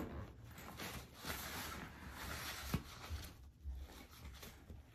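Faint rustling of nylon fabric as hands open and reach into a zippered compartment of a disc golf backpack, with one light click a little past halfway.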